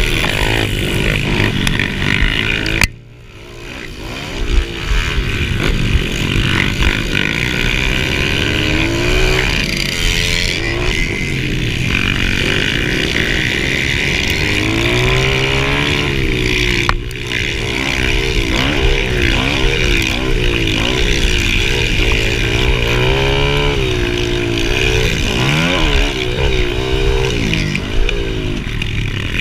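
Mini dirt bike engine revving up and down as the bike races around a dirt motocross track, with other mini bikes running close by. About three seconds in the sound drops away abruptly for about a second, then comes back with a sharp knock.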